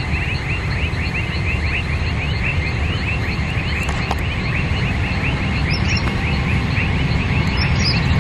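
Boeing 747-300's four Rolls-Royce turbofans at takeoff power, a deep rumble that slowly grows louder as the jet rolls toward the listener. Over it runs a steady high chirping, about five short rising chirps a second.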